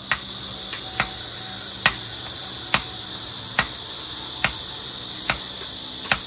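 A hammer striking bricks in a steady rhythm, about one sharp strike every second, over a constant high-pitched buzz of summer insects.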